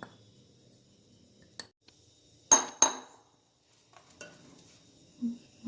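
Kitchen utensil tapped against a mixing bowl while dry ingredients go into the cake batter. Two sharp clinks with a short ring come about a third of a second apart, with a light tick before them and faint ticks after.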